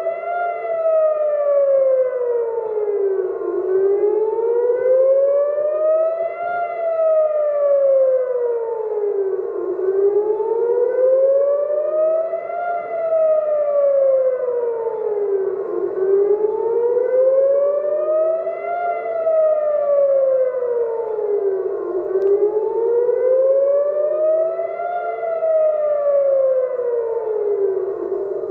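Israeli civil defence air-raid siren wailing, its pitch rising and falling slowly in a steady cycle about every six seconds: the alert for incoming rockets.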